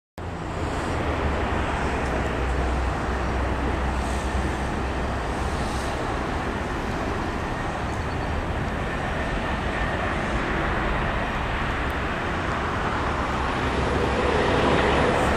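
Airbus A319 airliner on final approach, gear down, its jet engines a steady rushing roar with a low rumble that grows louder near the end as the plane comes closer.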